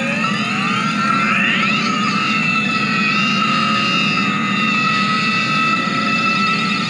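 Experimental electronic drone: several tones glide upward together in the first second or two, then settle into steady, held high tones over a low, constant hum.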